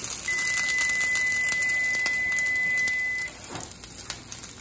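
Flattened potato patties sizzling in hot grapeseed oil in a sauté pan as they fry, a dense high hiss. A steady high electronic tone sounds over it for about three seconds, and the sizzle drops off suddenly about three and a half seconds in.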